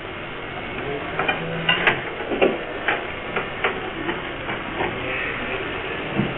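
Irregular knocks and clatters, about ten over three or four seconds, over a steady background hiss.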